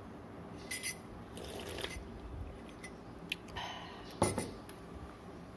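A glass coffee mug with a metal teaspoon in it clinks a few times, then is set down on a countertop with a knock about four seconds in.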